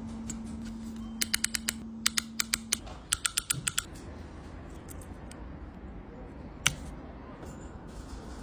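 Three quick runs of sharp clicks, about five or six each, like tapping or typing on a hard surface, with one more click later. Under the first runs is a steady low hum that stops a little under three seconds in.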